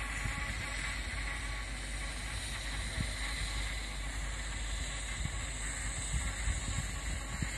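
Steady rumble and hiss of parked Class 57 diesel locomotives idling, with a few low thumps.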